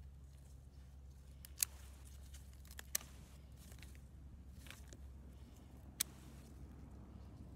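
Hand pruners snipping through white sage stems: three sharp snips, about a second and a half in, about three seconds in, and about six seconds in, over a faint steady low hum.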